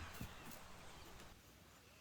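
Near silence: faint room tone, with one soft click just after the start.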